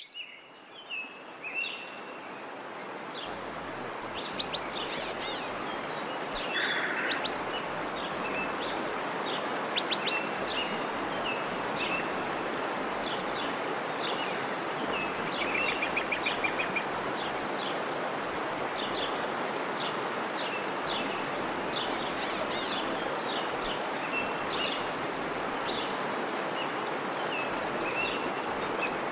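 Waterfall rushing steadily with songbirds chirping and trilling over it, a nature-sounds recording fading in over the first few seconds.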